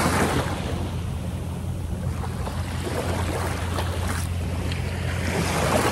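Wind rumbling on the microphone over the wash of small waves in shallow water.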